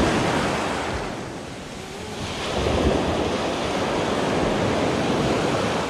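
Surf breaking and washing up a sandy beach at the water's edge: one wave's wash fades out over the first second and a half, then another breaks about two and a half seconds in and washes up steadily.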